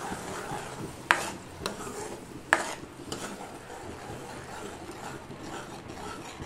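Spoon stirring a ground onion, tomato and yogurt masala paste as it fries in oil in a pan, a steady stirring-and-frying noise. A few sharp clinks of the spoon against the pan come through it, the loudest about a second in and again about two and a half seconds in.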